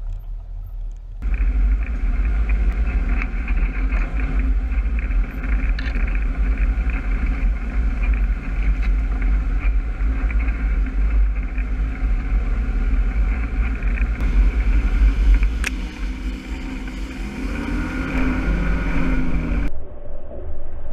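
Side-by-side UTV's engine and drivetrain running while driving along a rough dirt trail, heard close from the vehicle itself; the engine revs up with a rising pitch over the last few seconds, and the sound changes abruptly just before the end.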